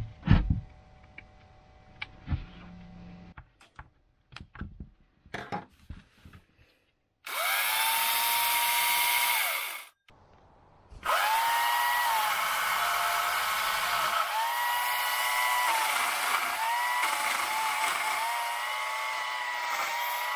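Homemade battery chainsaw, a 12-volt DC boat-winch motor driving an old McCulloch chainsaw's chain, running with a steady electric whine. After a few light knocks and clicks it runs for about three seconds and stops, then starts again about a second later, its pitch sagging and recovering several times as the motor takes load cutting branches.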